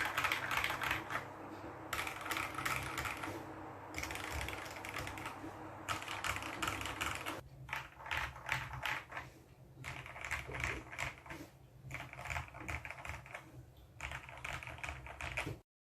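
Tes 68 mechanical keyboard being typed on in quick bursts of keystrokes with short pauses between them. A steady low hum runs underneath.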